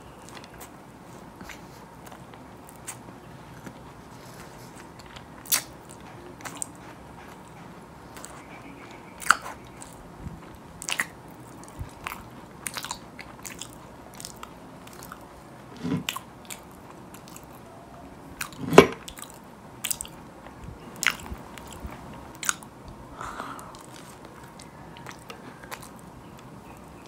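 Biting and chewing chocolate-coated marshmallow cookies (chocolate mallows). The chocolate shell cracks in sharp, irregular snaps with softer chewing between them, and the loudest snap comes about two-thirds of the way through.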